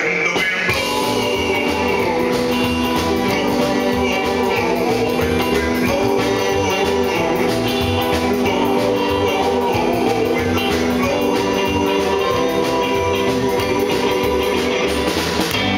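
Live rockabilly band playing: a man singing lead over electric guitar and saxophone, with a steady bass line.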